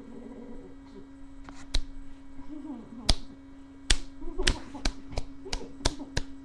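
About ten sharp smacks, a few spaced out at first and then coming about three a second in the second half, over a steady electrical hum.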